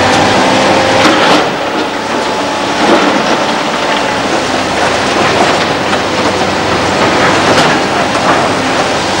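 Hydraulic excavator running while it tips a bucketful of broken rock and soil into a dump truck's steel body. The rocks clatter and thud into the bed, with several sharp knocks among them.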